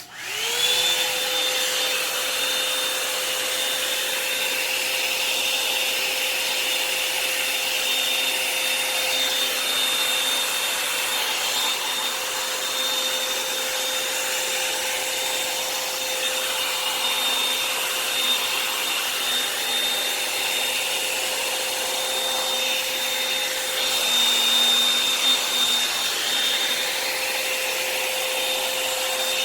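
Revlon hot-air dryer brush switched on at its high setting: its motor whines up to speed within about a second, then runs steadily with a constant hum and whine over rushing air.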